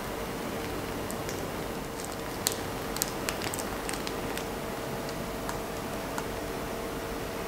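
Whipped cream being piped from a piping bag onto a crepe: soft squishing with scattered small clicks, over a steady hiss and faint hum.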